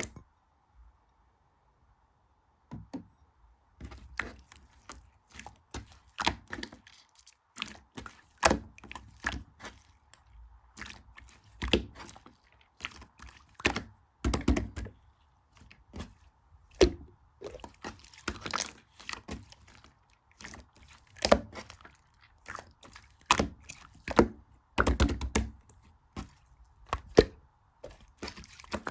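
Slime being squeezed and poked by hand, giving irregular crackling clicks and pops with occasional louder snaps. These start about three seconds in.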